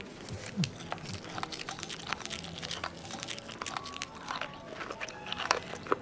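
Someone crunching and chewing a whole langoustine, shell and all, with many sharp cracks and clicks.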